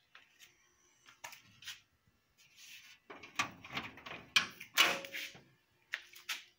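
Irregular knocks, scrapes and rustling from a hand and the handheld phone brushing against the bare metal cab of a 1930 Ford AA truck, busiest and loudest in the second half.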